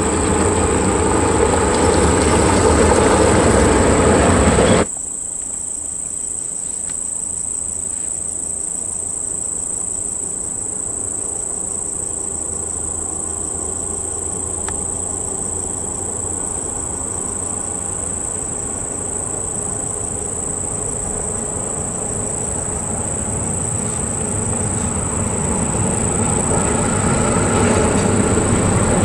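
Diesel engine of a Volvo haul truck pulling a coal dump trailer, loud for about five seconds and then cut off abruptly. A quieter diesel rumble from an approaching Hino dump truck follows and grows louder near the end. Insects buzz steadily at a high pitch underneath.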